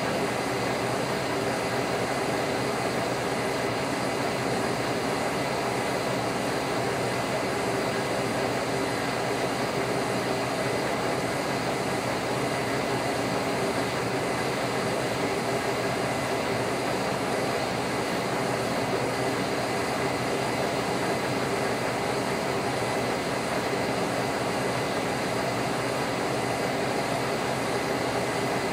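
Lucas 41 horizontal boring mill taking a boring cut in cast steel at a slow 77 RPM spindle speed: a steady running hum of motor and gearing with the cut going smoothly and no chatter.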